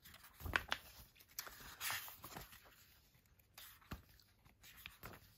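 Pages of a paper booklet being turned and handled: soft rustles with a few light taps and clicks.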